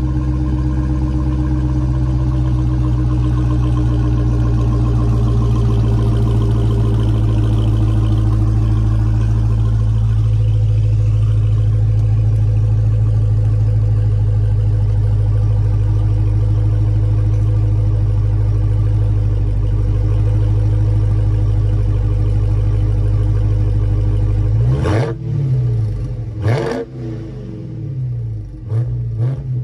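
Dodge Charger's HEMI V8 exhaust idling steadily just after a cold start. Near the end the throttle is blipped several times, each rev rising quickly and falling back.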